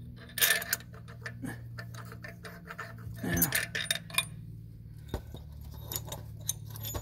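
Metal bolts and hand tools clinking and rattling while a harmonic balancer bolt is taken off and swapped for a longer one, in clusters of sharp clinks near the start and again about three seconds in.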